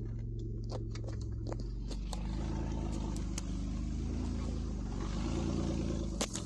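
2008 Mitsubishi Endeavor's 3.8-litre V6 running as the SUV crawls along a dirt trail, its note rising and falling twice with the throttle. Scattered clicks and taps from the ride over the trail, with one sharp knock near the end.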